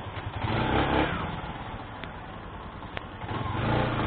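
Motorcycle engine running with road and wind noise, revving up about half a second in and again near the end.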